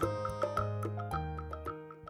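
Outro background music, synth notes over a bass line with short regular ticking beats, fading out.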